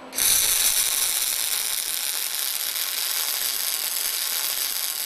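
Robotic arc welding: the welding arc running as a steady, harsh hiss, strongest in the highs. It starts abruptly just after the beginning and begins to fade out at the very end.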